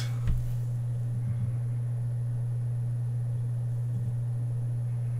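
Steady low electrical hum with a faint hiss, the recording's background noise, with one soft low bump just after the start.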